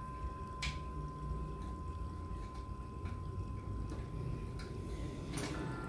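A few faint, scattered metal clicks as a steel wing nut is turned by hand onto a bolt of a mezzotint rocker's clamp, over a low steady hum and a faint steady high tone.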